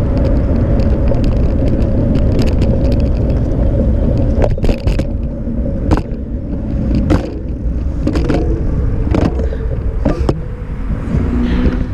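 Steady low rumble of wind and road noise on a bicycle-mounted action camera while riding, with a handful of sharp knocks in the second half as the bike and camera jolt.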